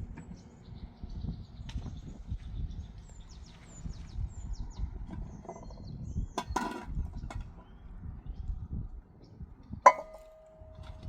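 Small birds chirping over a low outdoor rumble, with a few light clicks midway. Near the end there is a sharp knock on something hard, and it rings on with a steady tone.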